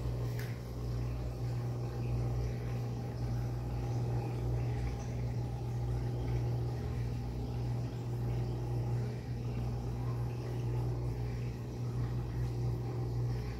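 Steady low electric hum of an aquarium pump running, unbroken throughout.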